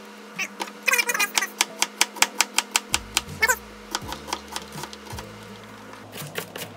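Chef's knife cutting a red onion on a plastic cutting board: a quick run of sharp knocks, several a second, about a second in, with more knocks near the end. Background music runs underneath.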